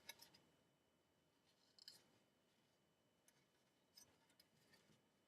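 Near silence with a few faint, short clicks and taps of a plastic model car body and kit parts being handled.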